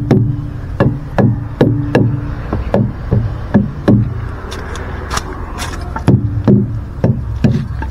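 Truck tyres being thumped during a pre-trip tyre check: a run of hollow knocks, about two or three a second, each with a short low ring. There is a pause midway, then four more knocks near the end, over a low steady hum.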